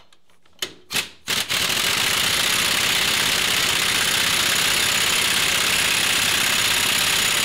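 Air impact wrench hammering a sacrificial lug nut down a new wheel stud to pull the knurled stud into the hub. Three short bursts come about a second in, then a steady run of rapid hammering.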